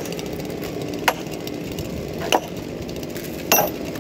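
Heavy hammer blows on a log being split lengthwise into a post: four sharp, evenly spaced strikes about a second and a quarter apart.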